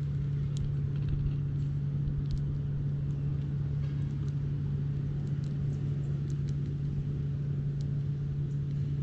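Steady low hum of a motor running, with a few faint light ticks.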